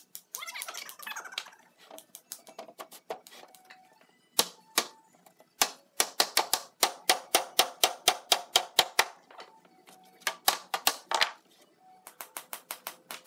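Rapid runs of sharp knocks on a wooden cabinet panel, about four to five a second, with the longest run in the middle and a shorter run near the end.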